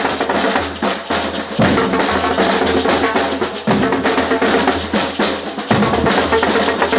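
Batucada samba percussion ensemble playing: deep bass drums under snare drums and other hand percussion in a dense, driving rhythm. The low drum phrase repeats about every two seconds.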